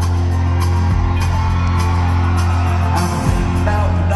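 Live country band playing in an arena, recorded from the audience seats: acoustic guitar over a deep, sustained bass line and a steady drum beat, with the bass changing note twice.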